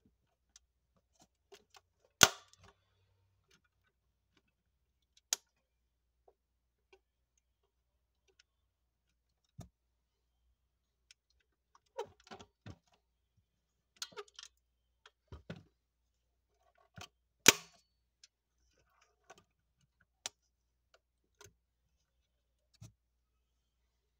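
Scattered sharp clicks and small taps from the opening doors and hinges of a 1:18 diecast Audi A6L model as it is handled, with two louder snaps, one a couple of seconds in and one about three-quarters through.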